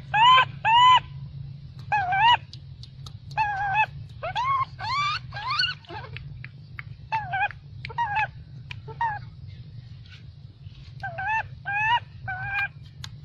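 Baby long-tailed macaque giving a run of short, high, arching whimper calls in clusters with pauses between: the distress calls of an infant refused milk by its mother. A steady low hum runs underneath.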